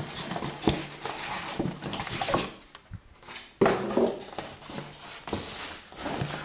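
Hands handling the packing inside a TV's cardboard shipping box: styrofoam blocks and plastic wrap rubbing and scraping, with scattered light knocks and one sharp knock about three and a half seconds in.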